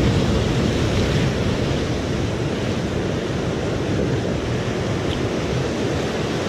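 Rough ocean surf breaking against rocks: a steady rush of water noise, with wind on the microphone.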